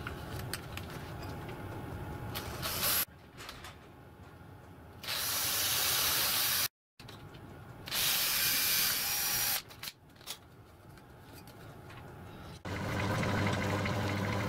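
Cordless drill boring through a thin sheet, in two loud bursts of a couple of seconds each. Quieter handling clicks come before and between the bursts. Near the end a steadier machine hum with low steady tones sets in.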